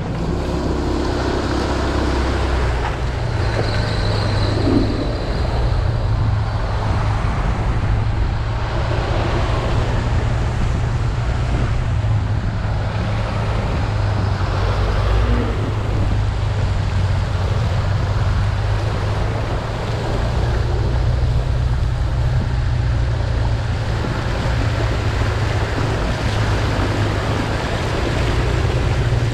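Motor scooter riding along a flooded road: a steady low engine and wind rumble on the camera microphone, with a hiss of water under the tyres.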